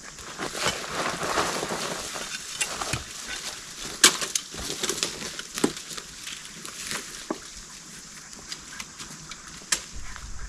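Irregular crunching and crackling, as of dry leaves and twigs being handled or trodden, with a sharp snap or knock about four seconds in.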